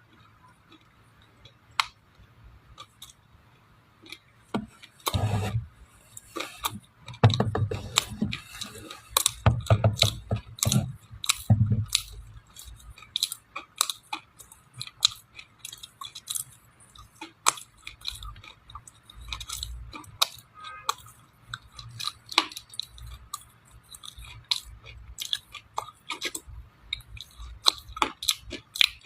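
A person chewing dry clay close to the microphone: crisp crunches and crackles. They come thickest, with heavier bites, from about five to twelve seconds in, then thin out to scattered cracks.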